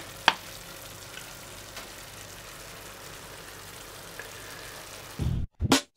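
Food sizzling in a frying pan, a steady hiss with a few sharp crackles. Near the end, heavy drum-machine beats of music cut in.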